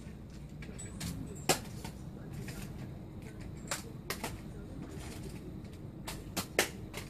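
A light ball being batted back and forth by hand, a few sharp slaps and taps: a loud one about a second and a half in, then pairs of quicker hits later, over a low steady room hum.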